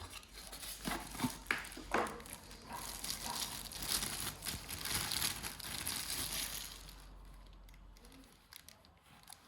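Plastic packaging crinkling and rustling as it is handled and pulled off, with a few light clicks and knocks; it dies down about seven seconds in.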